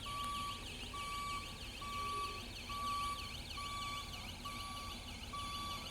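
Mobile crane's electronic warning alarm: a steady beep repeating about once a second, together with a fast warbling siren tone, over a low engine rumble.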